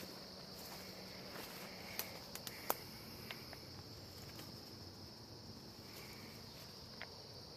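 A steady high-pitched insect chorus droning in the woods, with a few scattered sharp ticks and snaps about two to three seconds in, the loudest near the middle, and one more near the end.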